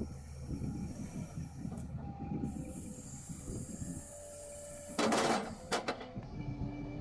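Firewood processor at work: a low engine rumble under irregular knocking and clatter of wood, with a short loud crash about five seconds in and a smaller one just after.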